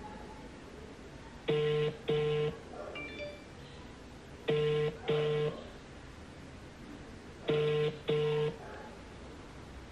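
Ringback tone of an outgoing mobile call heard through a smartphone's loudspeaker: a double ring, two short steady tones in quick succession, repeating every three seconds, three times. The call is not yet answered.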